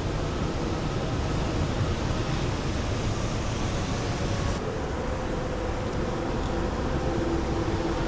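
Steady outdoor background noise of distant city traffic and wind, with a faint steady hum.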